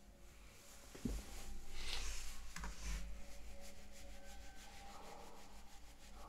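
Soft rubbing and rustling noise close to the microphone, with a low bump about a second in and a small click a little later.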